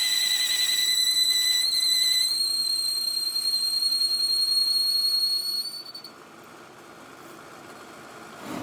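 A steady, high-pitched whistling whine with overtones. Its lower tone drops out a little after two seconds while the higher tone carries on, and the whine cuts off at about six seconds, leaving faint background noise.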